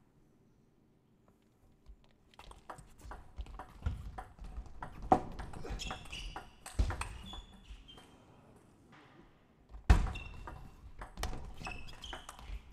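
Table tennis rally: the plastic ball clicking off the players' rubber-faced bats and the table in quick succession, with a few short squeaks from shoes on the court floor. It starts after about two seconds of near silence, and the hardest hits come about five, seven and ten seconds in.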